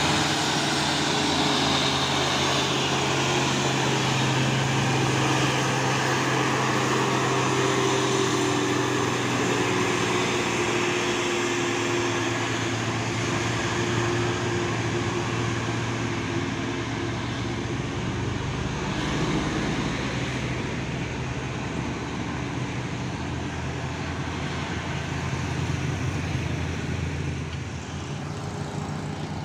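Heavy diesel truck engine running steadily under load as it climbs a steep grade, a low engine drone over road traffic noise, easing off slightly near the end.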